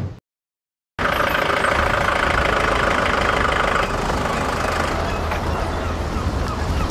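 Car engine running steadily, starting about a second in; about three seconds later its higher part drops away and a low rumble carries on.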